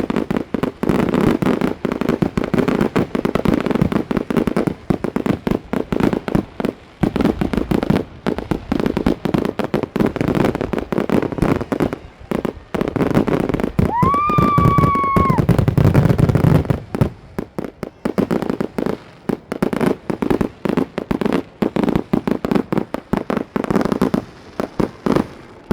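Fireworks going off in a dense barrage of rapid bangs and crackling. About halfway through there is a short whistling tone over low booms. In the second half the barrage thins to scattered pops.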